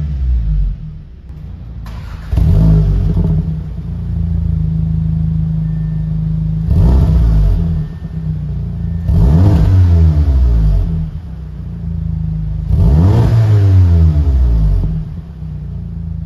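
A 2019 Audi S3's 2.0-litre turbocharged inline-four, breathing through an AWE aftermarket exhaust, idles and is blipped about four times while the car stands still. Each rev climbs and drops back to a steady idle.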